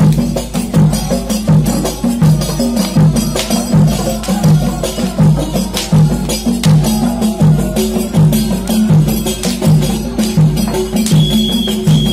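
Ensemble of hand-beaten frame drums (rebana) playing a steady, even rhythm, with sharp slaps on the drumheads.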